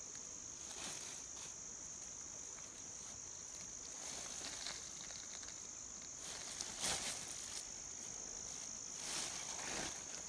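Insects trilling steadily in a high, unbroken drone, with faint rustles of a pulled peanut plant being handled.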